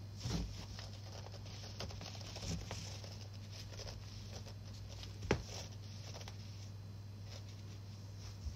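A munchkin cat's paws scratching and tapping against a cardboard box and carpet as it rolls and paws at it: scattered soft scrapes and taps, with a sharper knock about five seconds in.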